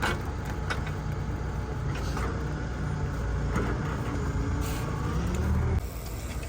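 Heavy equipment engine running steadily with a low rumble and a few short knocks; the sound drops away suddenly near the end.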